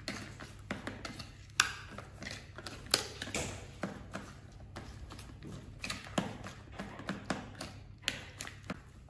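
A metal fork clicking and scraping on a plastic plate as food is cut up, in irregular sharp taps, two of them louder a second and a half apart. A steady low hum runs underneath.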